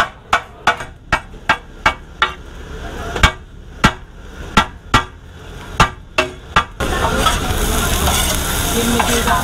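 Cleaver chopping fried chicken on a flat steel griddle: sharp knocks about three a second, then slower and uneven. About seven seconds in this gives way to sizzling, with a spatula and tongs scraping and tossing the chopped chicken on the hot griddle.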